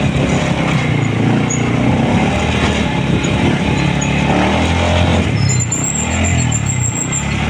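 Motor vehicle engine running on the road, a low hum that drifts up and down in pitch under steady road and wind noise.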